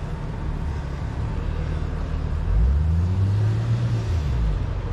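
A motor vehicle's engine passes close by on the street, its low hum rising in pitch and then falling away over about two seconds, starting around two and a half seconds in. Under it runs a steady low rumble of city traffic.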